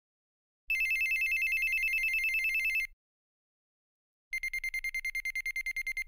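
Samsung SPH-N270 phone's built-in electronic ring tones. First a high two-note warbling trill for about two seconds, then after a pause of about a second and a half a rapidly pulsing one-note trill for about two seconds.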